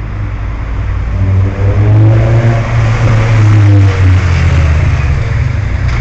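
A motor vehicle driving past close by. Its engine rumble swells to a peak about two to four seconds in, then eases off.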